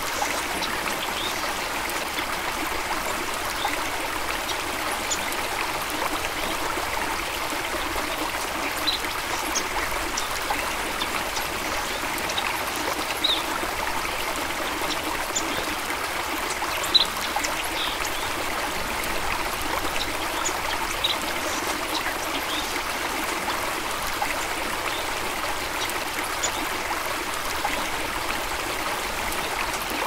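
Small waterfalls cascading into a stream: a steady rush and trickle of flowing water, with a few short, high bird chirps scattered over it, a couple of them standing out around the middle.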